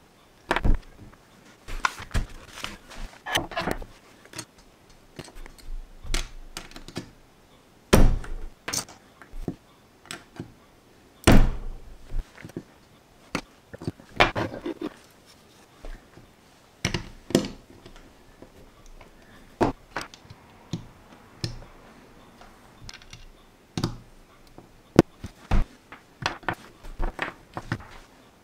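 Metal tweezers clicking and tapping on small LEGO plastic pieces and the tabletop as bricks are picked up and pressed together, with plastic pieces clattering. Irregular sharp clicks with a few louder knocks, the loudest about 8 and 11 seconds in.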